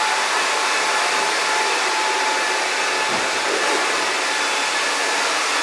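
Steady, even hiss like rushing air, with a faint steady whine in it; it does not change.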